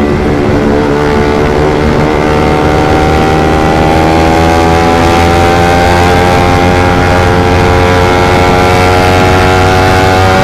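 Suzuki GSX motorcycle with a short Pro Liner aftermarket exhaust running hard at speed: the engine note climbs slowly and steadily as it accelerates through one gear, with wind noise underneath.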